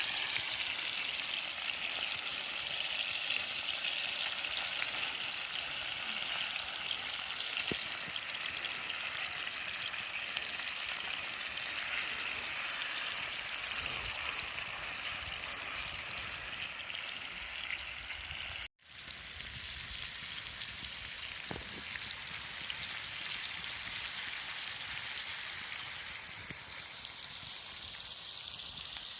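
Entrecôte steaks sizzling steadily as they fry over a campfire, searing to a crust. The hiss cuts out for an instant about two-thirds of the way through, then carries on a little softer.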